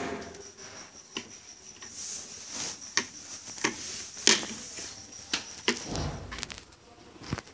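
Irregular small clicks and taps of hands twisting wire leads and handling an electronic fan regulator module in a small wooden box, with a dull thump about six seconds in.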